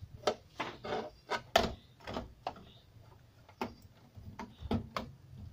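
Irregular clicks and knocks from a circuit board and its wires being handled against the sheet-metal chassis of a Konzert AV-502 amplifier. They come in two clusters, the first from the start and the second about three and a half seconds in, over a faint steady low hum.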